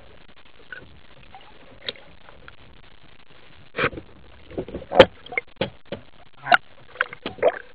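Sharp clicks and knocks heard underwater as a speargun and its shooting line are handled, a scattered run of them starting about four seconds in, the loudest about five seconds in. Before them, only a faint steady underwater hiss.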